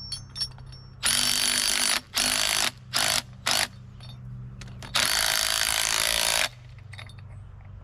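Power drill/driver running in five bursts as it drives a bolt into wood, the last burst the longest at about a second and a half.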